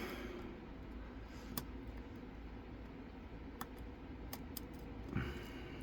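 Faint, sparse metallic clicks of a lock pick working the pins of the pirrip lock under tension, about five separate clicks with a brief soft scuff near the end.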